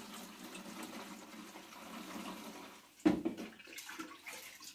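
Liquor poured from a plastic jug through a funnel into a plastic canister, a steady splashing trickle for nearly three seconds. A sharp knock follows about three seconds in.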